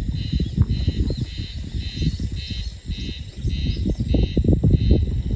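A high, rhythmic chirping call repeating about twice a second, from an animal such as an insect, frog or bird, over a loud, uneven low rumble.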